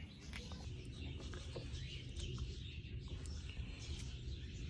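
Small birds chirping repeatedly in the background over a steady low rumble, with a few faint clicks.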